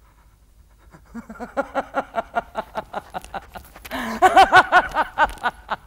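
A woman laughing in rapid staccato bursts, about five or six a second. It starts quietly about a second in and grows louder and more forceful about four seconds in.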